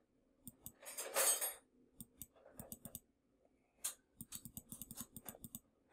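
Computer mouse clicks and keyboard keystrokes while a value is entered, ending in a quick run of about a dozen clicks. A brief, louder rush of noise comes about a second in.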